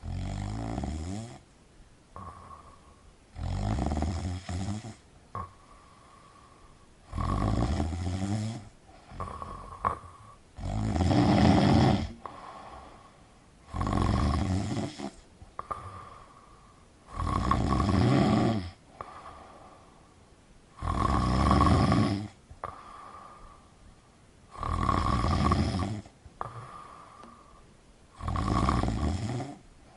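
A person snoring in a steady sleep rhythm: about nine snores, each lasting one and a half to two seconds, coming every three to four seconds.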